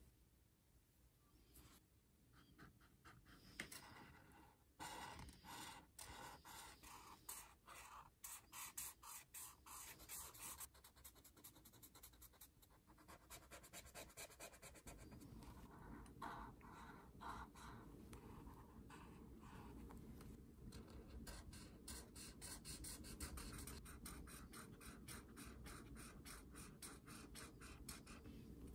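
Faint, rapid scratching of an Ohuhu brush-tip alcohol marker stroking across paper as it colours in small shapes. The strokes are sparse at first and turn dense after a few seconds.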